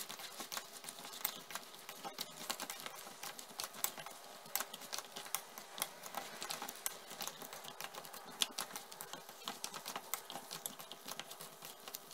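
Sticky chili-honey sauce crackling in a hot frying pan around coated fried chicken: a faint, irregular run of tiny pops and clicks as the sauce bubbles.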